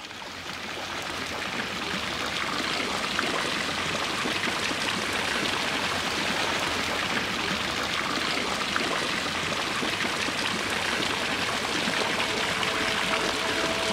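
Tiered fountain splashing, water spraying and falling into its basins in a steady rush. It fades in over the first two seconds.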